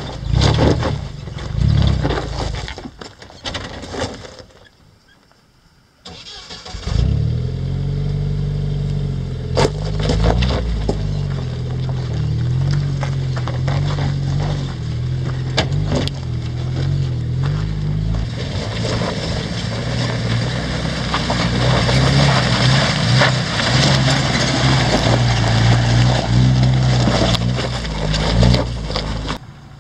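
Off-road vehicle engine running at low speed as it crawls up a steep, rocky trail, with knocks and rattles over the rocks. The sound falls almost silent for a couple of seconds several seconds in, then the engine comes back, and the rattling grows thicker in the second half.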